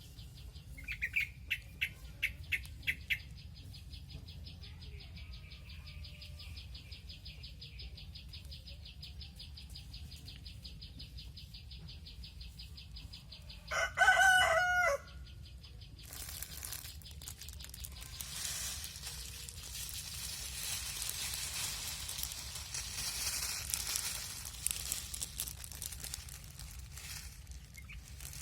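A rooster crows once, about halfway through; it is the loudest sound. Before it, a high, rapidly pulsing trill runs on and then stops suddenly. After it comes a steady rustling hiss.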